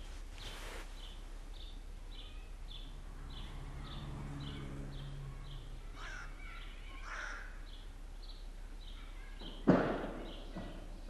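A bird chirping the same short note over and over, about three times a second, over city background noise. A low engine hum swells and fades midway, and one sharp thump, the loudest sound, comes near the end.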